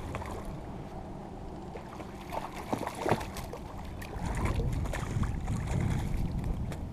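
A hooked crappie splashing at the surface as it is brought to the boat and scooped with a landing net, with a few sharp splashes about two to three seconds in. Wind rumbles on the microphone throughout.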